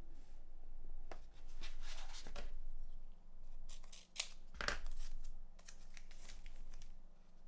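Scissors cutting through material in a series of snips, with pauses between the strokes.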